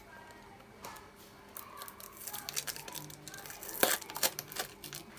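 A fishing reel's packaging is being torn open by hand: a run of tearing, crinkling and clicking noises, with one sharp snap near four seconds in.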